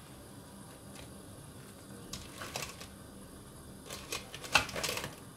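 Crab pieces being dropped into a pan of simmering curry: short clattering knocks of crab shell, a few about two seconds in and a louder run from about four to five seconds in.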